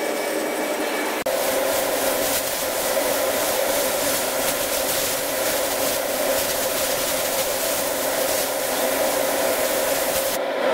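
Air spray gun hissing as paint is sprayed, from about a second in, over a steady hum that holds one pitch.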